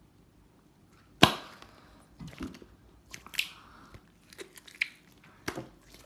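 Thick, sticky butter slime pulled and worked off a hand, giving irregular sharp sticky pops and clicks, the loudest about a second in.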